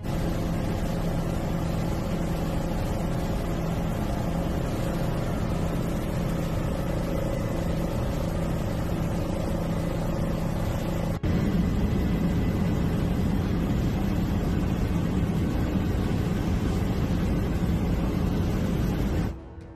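Steady engine drone and rushing air heard from inside an aircraft cabin, with a low hum running under it. The sound breaks off sharply about eleven seconds in and resumes a little louder.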